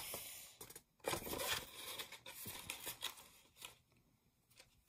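Hands rustling and crinkling a small packaging bag as it is torn open, in bursts over the first few seconds, followed by a couple of faint clicks near the end.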